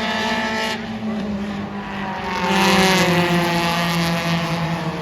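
Mini stock race cars' engines at full throttle as the pack passes on the track. The engines swell louder about halfway through, then drop slowly in pitch as they go by.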